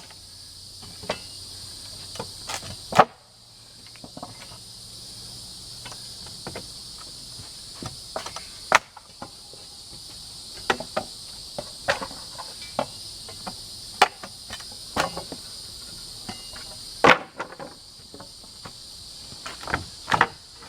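Wooden pallet being pried apart with a steel pallet-dismantling tool: irregular sharp cracks and knocks as boards and nails are wrenched loose, the loudest every few seconds, with smaller clicks between. A steady chorus of insects chirring runs underneath.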